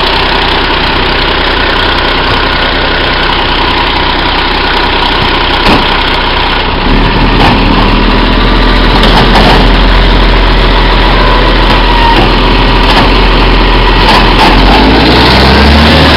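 Iveco Acco side-loader garbage truck running at idle, its engine note stepping up and growing louder about seven seconds in as the hydraulic arm lifts and tips a wheelie bin. A brief knock sounds just before the step.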